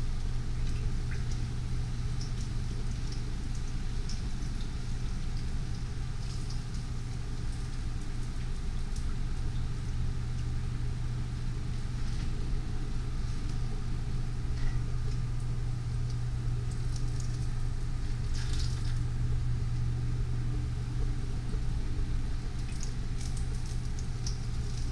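Battered chiles rellenos frying in a skillet of hot oil, the oil sizzling and crackling, over a steady low hum. A few brief clicks and scrapes of tongs and a spatula against the pan come near the end.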